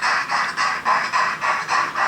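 Digital sound of an H0-scale model steam locomotive: steady steam chuffing at about four even beats a second, played through the model's small loudspeaker.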